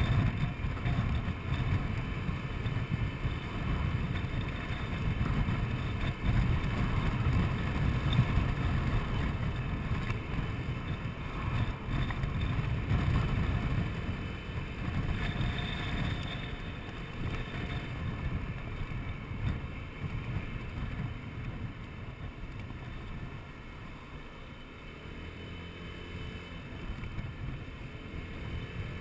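Wind buffeting the microphone over the hum of a Honda Forza 125 scooter's single-cylinder engine while riding. The wind rush eases a little over halfway through as the scooter slows into traffic.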